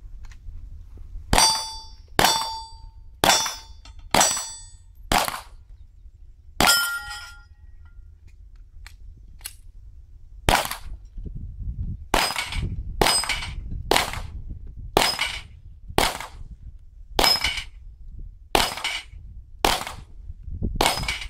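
Glock pistol shots fired in strings at steel targets, the plates ringing briefly after hits. Five shots come about a second apart, then one more, then after a pause a second string of about ten.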